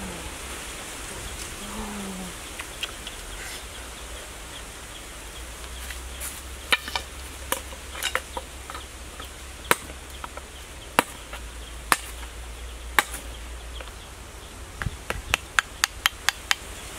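A cleaver blade chopping bamboo sticks on a wooden stump. Single sharp chops come about a second apart, then a quick run of chops near the end, over a steady background hiss.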